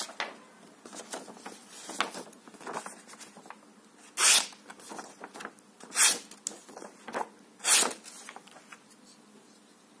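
Knife blade slicing through a sheet of paper: three sharp, hissing cuts, each under half a second, coming a little under two seconds apart, with softer paper rustling and small handling clicks between them.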